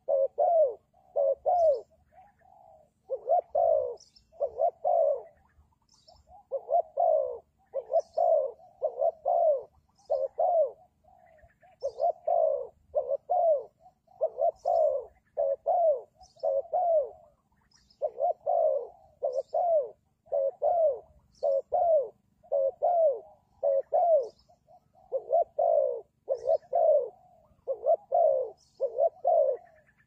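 Spotted dove cooing over and over: short coos that fall in pitch, run together in twos and threes with only brief gaps.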